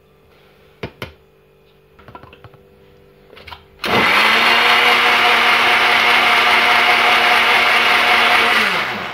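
Electric countertop blender motor running steadily as it beats eggs and sugar, starting about four seconds in after a couple of clicks, then winding down with a falling pitch near the end.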